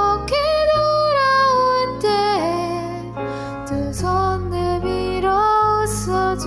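A slow, gentle song: a voice sings long, gliding held notes over soft, low sustained accompaniment.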